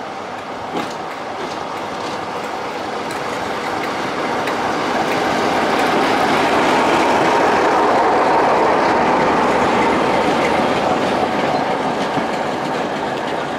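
A diesel locomotive hauling passenger coaches passes close beneath. The engine and running noise grow louder to a peak about halfway through, then ease slightly as the coaches roll past.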